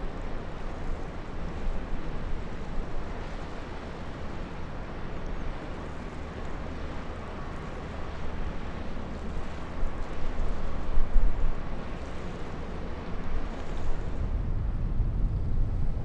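Low, steady rumble of a passing ship's engine mixed with wind buffeting the microphone and the wash of river water. There is a louder burst about eleven seconds in.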